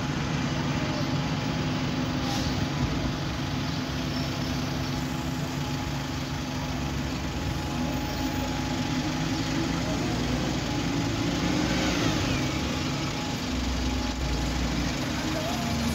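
Diesel bus engines running in street traffic, idling and moving off, with a steady low hum throughout.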